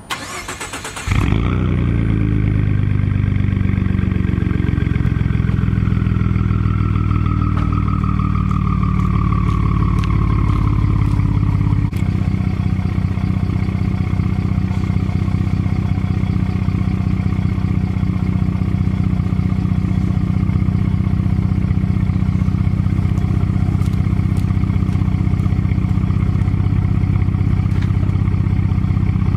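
Ford F-150's 3.5L EcoBoost twin-turbo V6 starting about a second in and then idling steadily, loud through a muffler and resonator delete exhaust. A faint whine slowly falls in pitch during the first half.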